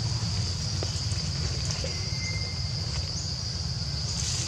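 Steady high-pitched insect chorus in forest, with a few faint short chirps, over a constant low rumble.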